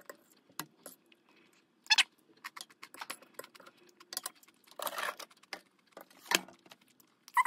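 Metal fork clinking and scraping against a ceramic plate while eating: scattered sharp clicks, a longer scrape about five seconds in, and a louder knock shortly after six seconds.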